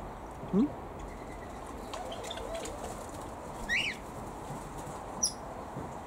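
Aviary birds chirping: a short call sliding in pitch about halfway through and a brief, very high chirp near the end, over a faint steady rustle.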